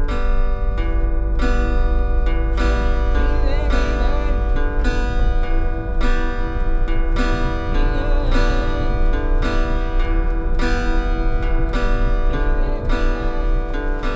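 Background music: an acoustic guitar strummed in a steady rhythm, with no singing.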